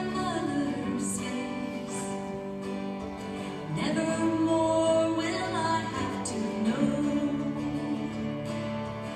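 Female gospel vocal trio singing a song in harmony, backed by piano, bass and guitar, recorded from the back of the church sanctuary.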